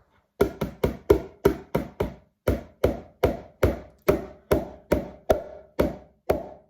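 A stubborn egg being knocked again and again against the rim of a mixing bowl, failing to crack: a steady run of about seventeen sharp knocks, a little over two a second, each with a brief ring from the bowl.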